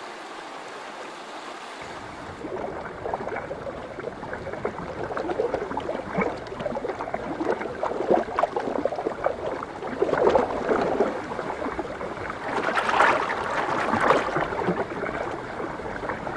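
River water over a salmon spawning bed: a steady rush at first, then from about two seconds in, irregular gurgling and splashing as sockeye salmon jostle in the shallows. The splashing is busiest and loudest about two-thirds of the way through.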